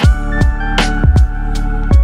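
Background music with a steady drum beat under held melodic notes.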